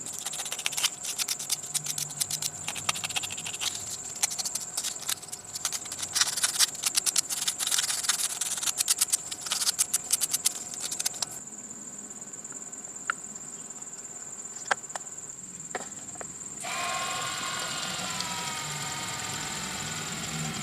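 Rapid, irregular clicking and rattling for about eleven seconds, then a few scattered clicks. About seventeen seconds in, a small motor starts and runs with a steady whine. A constant high-pitched tone sits underneath throughout.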